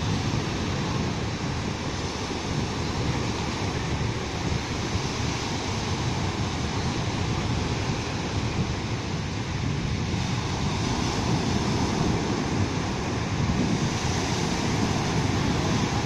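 Surf breaking and washing up a sand beach: a continuous rush of breaking waves that swells a little louder near the end as a bigger wave rolls in.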